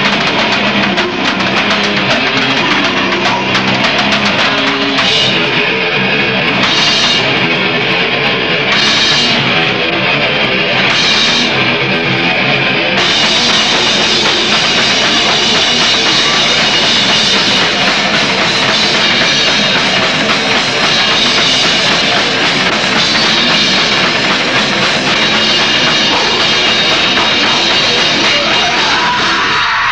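Death metal band playing loud: distorted electric guitars and a pounding drum kit. Cymbal crashes come about every two seconds in the first half, then the cymbals ring steadily from a little before halfway.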